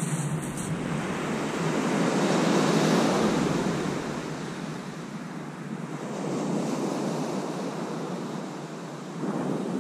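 Sea waves breaking and washing on the beach, the surf rising and falling in swells about every three seconds.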